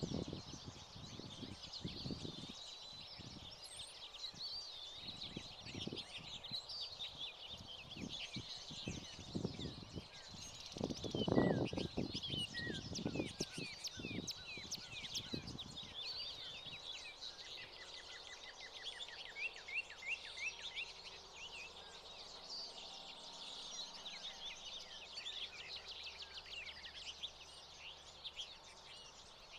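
Finches twittering and chirping, many short high calls overlapping throughout. Dull low thumps break in during the first half, the loudest about eleven seconds in.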